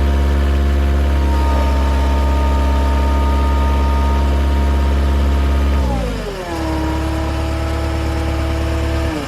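New Holland LX565 skid steer's diesel engine running at high revs while the machine pushes the fence over. About six seconds in, the revs drop to a lower steady speed, and they start falling again right at the end.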